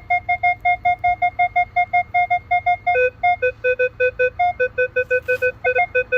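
Metal detector giving rapid repeating beeps, about six a second, over a gold centenario coin; about halfway through the beeps drop to a lower pitch as the coil is raised and the target response changes.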